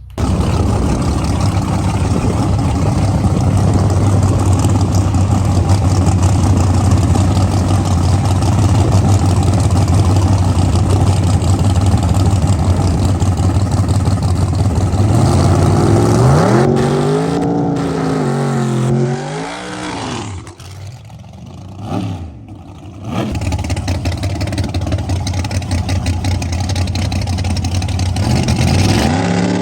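Drag racing car's engine running loudly in the lanes, then revved up and down several times about halfway through, dropping back, blipped once more, and running again.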